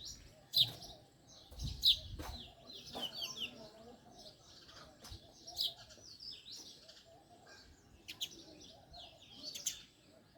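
House sparrows chirping: a busy run of short, high chirps with a louder chirp standing out every second or two.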